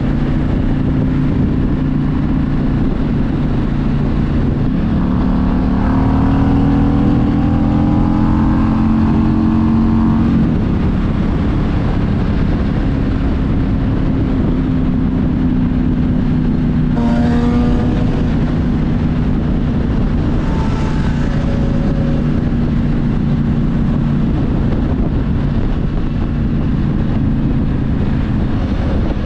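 Harley-Davidson Street Glide's V-twin engine running at road speed under a steady rush of wind noise. About five seconds in the engine note climbs as the bike accelerates, then drops back about ten seconds in and settles into an even cruise.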